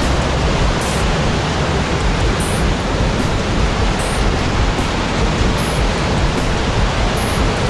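Waterfall in flood: a loud, steady rush of heavy falling water.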